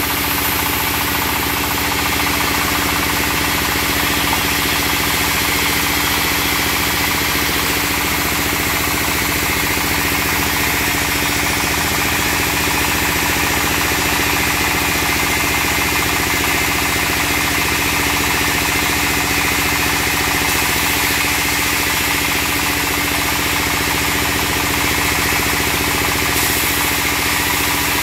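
Stationary diesel engine running steadily, driving a band sawmill whose blade is cutting through a log during a test run.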